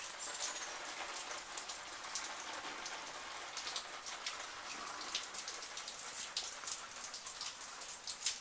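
Steady rain falling, with many separate drops tapping sharply.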